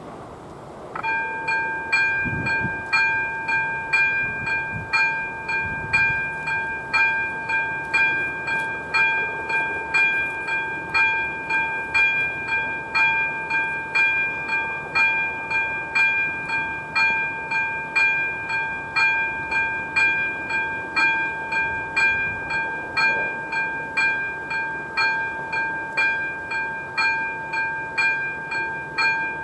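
Level-crossing warning bell, an AŽD 97 signal's ZV-02 electronic bell, switching on about a second in and then ringing steadily. It gives a bell-like tone struck over and over in an even rhythm: the crossing's warning of an approaching train.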